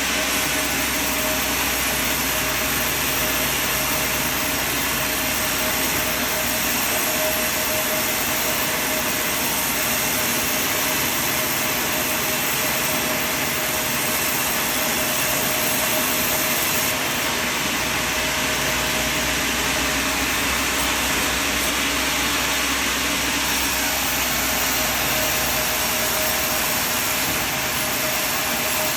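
Sawmill running steadily, a continuous machine noise with a steady whine that holds its level throughout.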